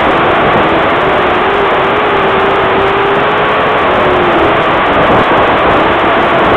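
Pro stock race car's engine running hard under racing load, heard loud from the car itself. Its pitch holds steady, dips briefly about four and a half seconds in, then climbs again.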